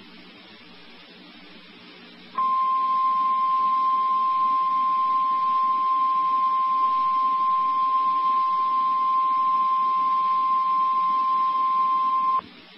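NOAA Weather Radio warning alarm tone: one steady, single-pitch 1050 Hz tone over a radio, starting about two seconds in over faint hiss, held about ten seconds and cutting off sharply near the end. It is the attention signal that a warning message is about to be broadcast.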